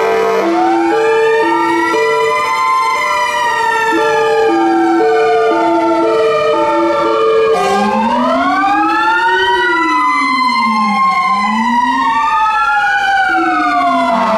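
Several fire engine sirens sounding together: slow wails rising and falling over a two-tone hi-lo horn alternating about twice a second. About halfway through, the two-tone stops and more wailing sirens with quicker rise-and-fall sweeps take over.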